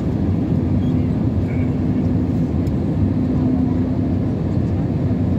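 Steady cabin noise of a jet airliner in flight, heard from a window seat over the wing: a constant low roar of engines and airflow with a faint steady hum on top.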